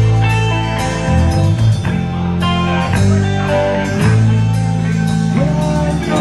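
Live rock band playing: electric guitar over bass guitar and drums.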